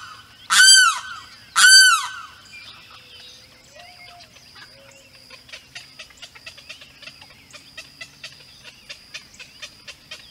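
A limpkin calling loudly twice, each cry rising and then falling in pitch, within the first two seconds. After that, faint irregular ticking continues in the background.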